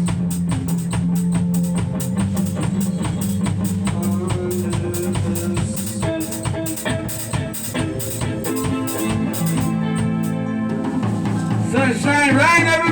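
Instrumental break of a band song: a drum kit keeps a steady beat over bass notes, and a voice comes back in near the end.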